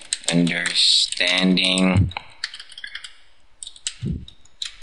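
Computer keyboard typing: a run of quick, uneven keystrokes as a line of text is entered, continuing on its own after a voice stops about two seconds in.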